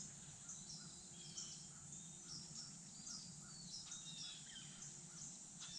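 Faint woodland ambience with small birds calling: a steady series of short calls, with higher short chirps over them.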